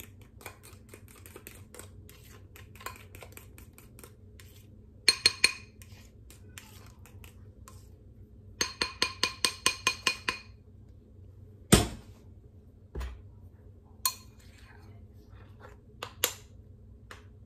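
A spoon stirring thick white icing in a glass bowl, clinking against the glass: scattered light taps, three sharp ringing clinks about five seconds in, then a quick run of about ten ringing clinks. A dull thump follows just before the twelve-second mark, then a few more scattered clicks.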